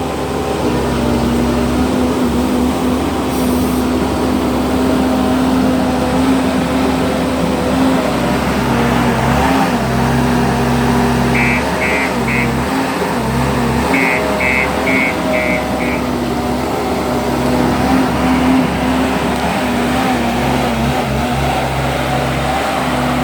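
JCB 155 skid steer loader's diesel engine running steadily while working, its pitch shifting a little with the load. Around the middle its reversing alarm beeps in two short runs of quick, even beeps.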